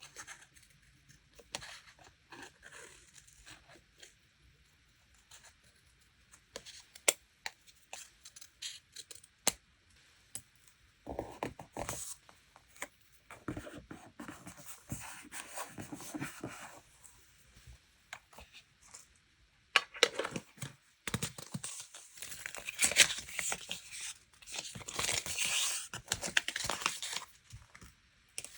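Paper being torn, crinkled and rustled by hand, broken up by small taps and clicks. There are longer spells of rustling and tearing about a third of the way in and again through the second half.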